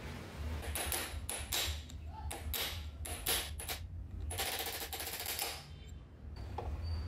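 A quick series of sharp metal knocks and taps from tools at work on an old electric chainsaw's motor housing, then an even hissing noise lasting about a second.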